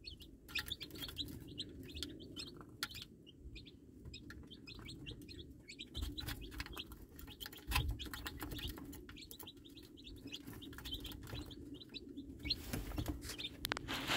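Baby chicks peeping in many short, high chirps, mixed with sharp clicks of beaks pecking at a plastic chick feeder and scratching in wood shavings.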